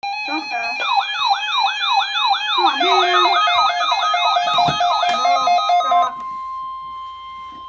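Weather radio warning alarm: a rapid repeating rising siren sweep, about two and a half a second, that stops about six seconds in, leaving a steady 1050 Hz alert tone.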